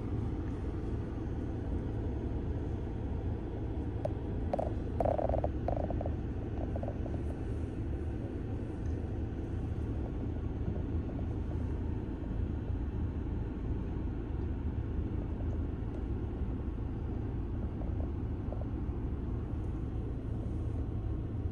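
Steady low rumble of road and engine noise heard from inside a moving car. A short higher tone sounds about five seconds in.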